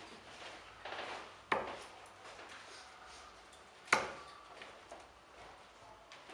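Two steel-tip darts striking a Bulls Focus II bristle dartboard, each a sharp short thud, about two and a half seconds apart.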